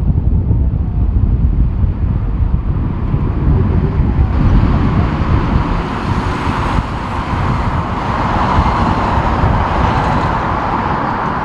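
Jet airliner approaching to land, its engine noise building steadily over the second half, under heavy wind buffeting on the microphone.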